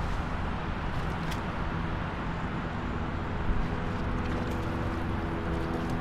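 Steady rush of wind and churning wake water from the MSC World Europa cruise ship under way. Faint steady tones come in about four seconds in.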